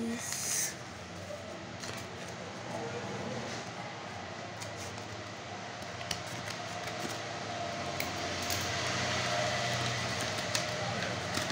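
Steady background noise that grows a little louder toward the end, with a few light clicks and rustles as a folded paper packet is handled and opened.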